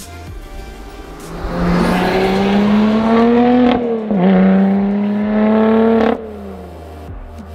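Lotus Exige 430 Cup's supercharged V6 accelerating hard. The engine note climbs, drops back at an upshift about four seconds in, climbs again, then cuts off about six seconds in.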